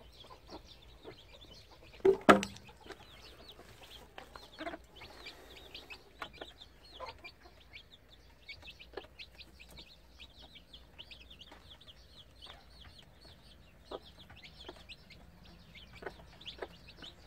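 Chicks peeping in a steady stream of quick, high chirps, with a hen clucking now and then. There is one loud, sudden sound about two seconds in.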